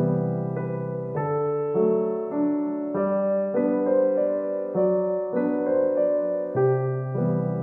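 Background piano music: a slow melody of held notes, with a new note or chord about every half second.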